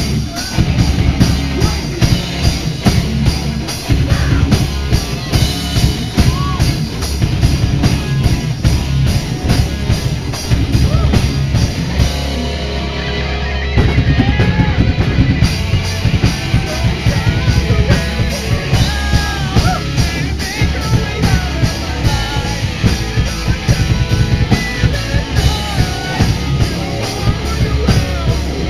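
Metal/hardcore band playing live and loud: distorted guitars and bass over fast, heavy drumming. The cymbals drop out for a few seconds about halfway through, then come back in.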